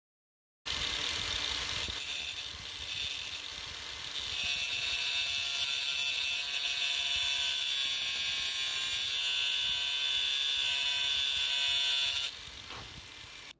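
Angle grinder disc grinding a small metal knurled screw held in a vice: a steady high motor whine over a hissing grind. It starts abruptly about a second in, gets louder a few seconds later, and drops away near the end.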